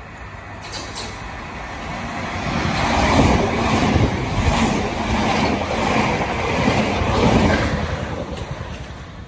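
Electric passenger train running past close by, its wheels and running gear on the rails growing louder, staying loud for several seconds, then fading away.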